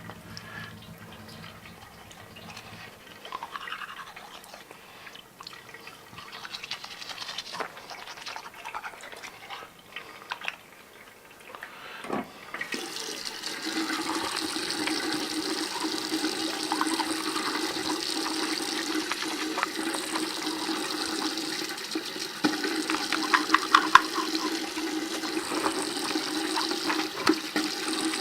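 Small handling clicks and rustles, then about thirteen seconds in water starts running steadily and keeps going.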